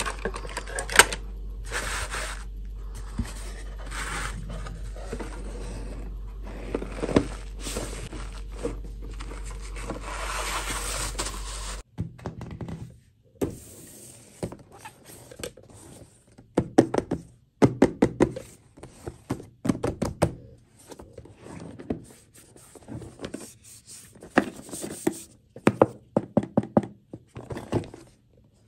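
Small plastic dolls being shuffled and handled in a box, rustling, over a steady low hum that stops suddenly about twelve seconds in. Then a cardboard gift box is handled on a hard tabletop, with a run of knocks, taps and scrapes.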